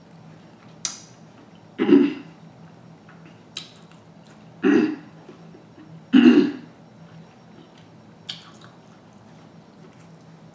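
A woman gives three short throat-clearing coughs, about two seconds in and twice more a few seconds later. A few sharp clicks fall between them.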